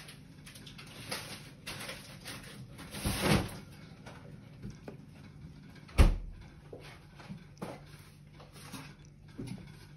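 Light, scattered clicking and tapping of a crab's pointed leg tips on a wooden floor as it crawls. There is a louder scuffle about three seconds in and a single sharp thump about six seconds in.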